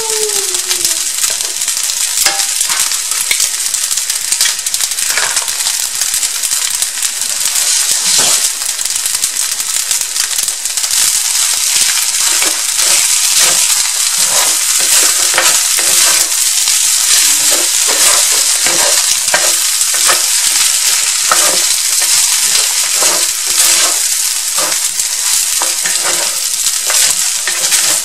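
Fried rice and a freshly cracked egg sizzling in a hot skillet, with a steady frying hiss. The rice is stirred and scraped with a wooden spatula and a spoon, and the scrapes come more often in the second half.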